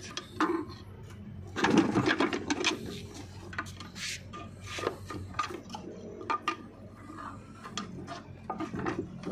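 Metal clinks, taps and scraping from handling the combine harvester's gearbox shaft and bearing parts on the gearbox housing. The sounds are irregular, with a busier cluster about two seconds in.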